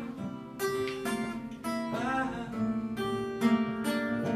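Acoustic guitar strummed in a steady rhythm between sung lines of a live song, with a short wavering vocal note about halfway through.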